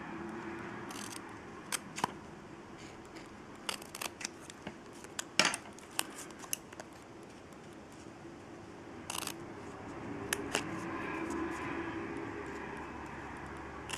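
Scissors snipping through cardstock: a scattered series of short cuts and clicks.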